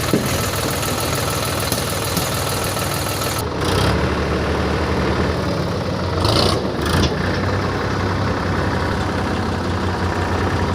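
Heavy diesel machinery engine running steadily. A hiss over it cuts off about three and a half seconds in, leaving a steadier, deeper engine hum, and two short, louder noisy bursts come around six and seven seconds in.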